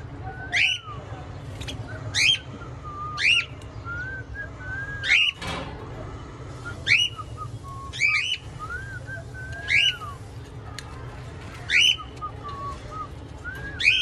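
Cockatiel giving loud, sharp whistled calls that sweep up and back down in pitch, about nine of them at intervals of one to two seconds, with softer warbling notes in between.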